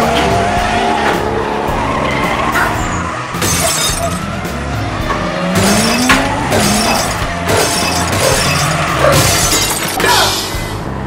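Background music with a repeating beat, overlaid with sliding pitched sound effects and several short bursts of noise.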